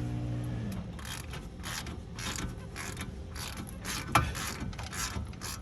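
Hand socket ratchet wrench worked back and forth in short strokes, about two a second, each stroke a quick run of ratcheting clicks, with one sharper click about four seconds in.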